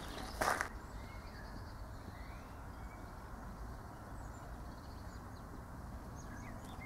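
One crunching footstep on a gravel path about half a second in, then quiet outdoor ambience: a low steady rumble with faint, scattered bird chirps.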